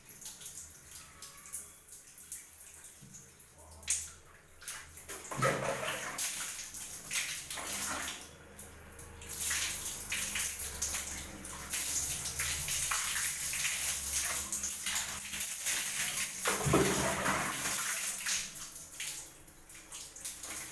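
Water poured from a plastic mug over long hair and splashing down onto a bathroom floor, in several uneven pours with a longer, steadier pour through the middle.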